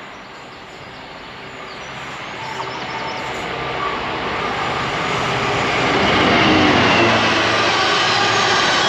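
A train approaching along the line, its rumble growing steadily louder for about six seconds and then staying loud as it draws level and passes close.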